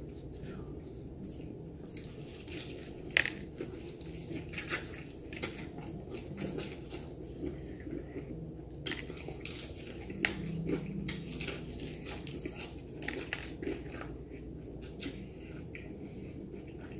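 Crispy fried chicken being pulled apart, bitten and chewed close to the microphone: a run of small, irregular crunches and crackles of the breading with chewing in between.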